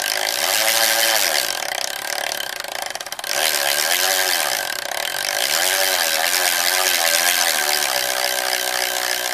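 Xentis Mark1 carbon rear wheel spinning fast on a road bike, its freehub buzzing over a high whirring hiss, the pitch swelling and falling in waves every second or two. The sound drops briefly about three seconds in.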